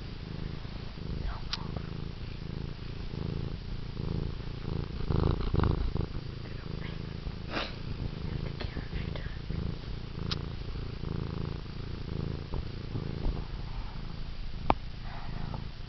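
Domestic cat purring steadily at close range, a continuous low rumble, with a few short sharp clicks over it.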